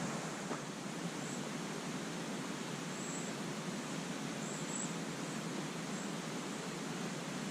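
Steady rush of a small river flowing over rocks, with a few faint, very high bird chirps scattered through it.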